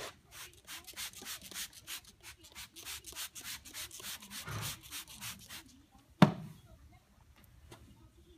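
Trigger spray bottle of Quic Braid braiding spray pumped over and over, quick hissing squirts about three or four a second, stopping a little past halfway. Then a single sharp knock, the loudest sound.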